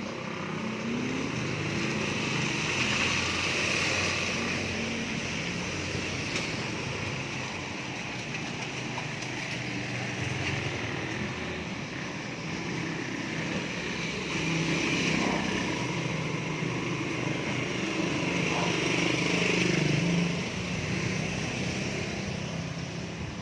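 Vehicle engine running with road noise as it travels along, a steady hum that swells twice in the second half.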